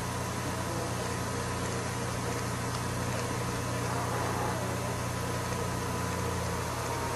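A steady low mechanical or electrical hum with hiss, unchanging throughout.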